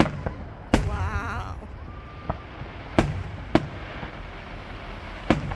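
Aerial fireworks bursting: four loud, sharp booms, each trailing off in a short rumble, with a few fainter pops between them.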